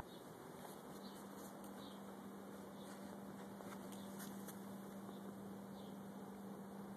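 A mouse squeaking faintly and high-pitched several times while a cat holds it cornered, over a steady low hum.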